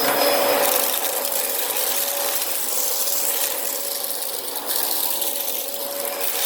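Vacuum cleaner running steadily with a constant whine, picking up leftover sand and debris.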